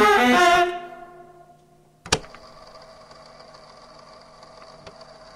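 A saxophone-led jazz band plays its final chord, which cuts off under a second in and rings away. About two seconds in there is a sharp click, then a steady electrical hum with a faint hiss.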